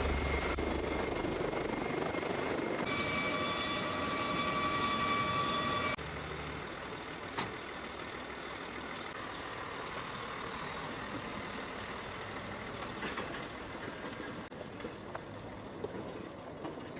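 Steady engine noise with a high, even whine for a few seconds, cut off abruptly about six seconds in, followed by quieter steady machine noise.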